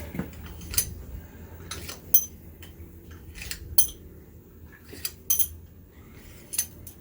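Metal tools and engine parts clinking as they are handled: about five sharp, ringing clinks a second or so apart.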